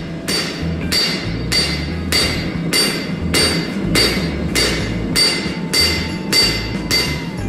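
Hand hammer striking red-hot spring steel on an anvil in a steady rhythm, a little under two blows a second, each blow with a short metallic ring. This is hammering out the bevel on a knife blade's edge.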